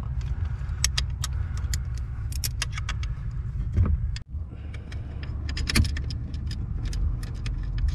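Light, irregular metallic clicks and clinks of a steel bolt and hand tools against a boat's steering helm mount as the bolt is started by hand, over a steady low rumble.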